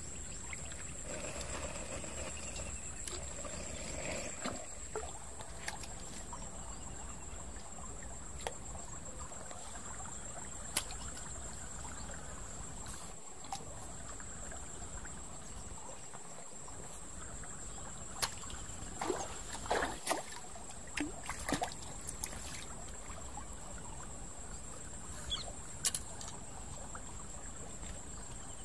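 Shallow stream trickling and lapping steadily, under a continuous high-pitched buzz. A few short clicks and taps, bunched about two-thirds of the way through.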